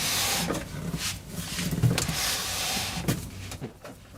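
A 3.5-inch hard drive being handled and slid into place in a PC case: two stretches of scraping of metal and plastic, with several clicks between them, over a low steady hum.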